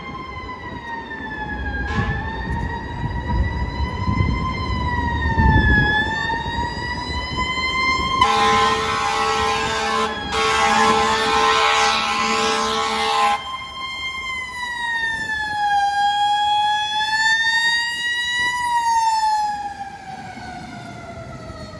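Fire apparatus siren wailing in slow rises and falls, with a deep rumble in the first few seconds. About eight seconds in, two long air-horn blasts cut in, the second longer. Near the end the siren falls in pitch.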